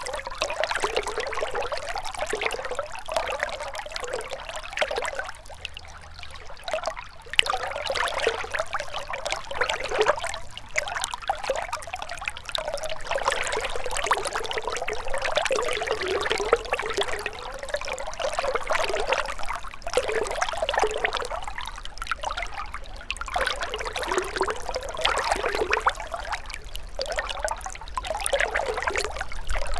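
Shallow river water running and trickling, a steady splashing babble that swells and eases every few seconds.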